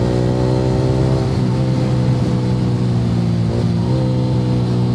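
Yamaha R15 V3's single-cylinder engine running through an Akrapovic R9 aftermarket exhaust at a steady cruising pace, the note dipping slightly and picking back up about three and a half seconds in.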